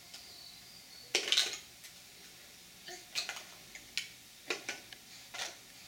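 Large plastic toy building blocks clacking and clattering together as a baby handles them: a loud burst of clatter about a second in, then a few shorter, separate clacks.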